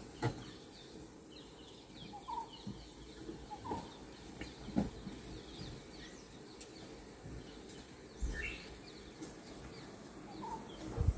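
Quiet bush ambience with birds calling: scattered short chirps and a few brief rising calls. Two sharp knocks, one near the start and one about five seconds in.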